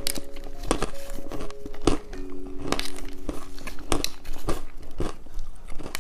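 Sharp crinkling and crunching clicks, about two a second, from candy being handled and eaten, over soft background music with held notes.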